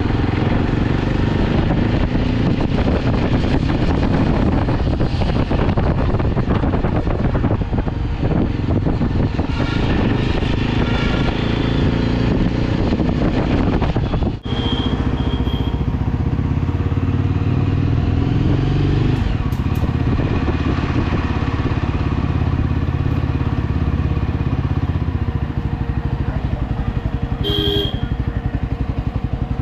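Motorcycle engine running steadily under way, heard from the rider's seat, with a brief break about halfway through. A short horn beep sounds near the end.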